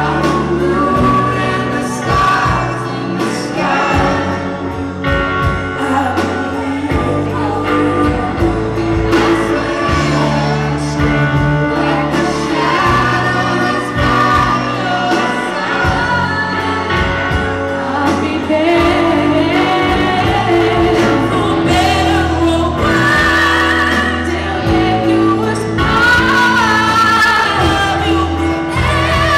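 Live band playing a 90s pop ballad, with several voices singing together in harmony over electric guitars and bass guitar.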